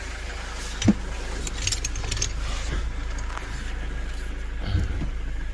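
Van engine idling with a steady low rumble, with light metallic clinks and jangles about a second or two in and a soft knock near the start.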